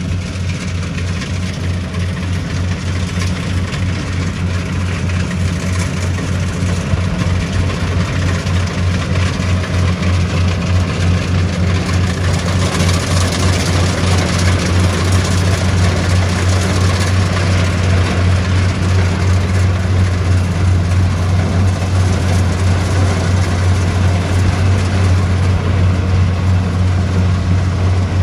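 Rice combine harvester at work, its engine running steadily with a fast, even low throb that grows louder over the first half.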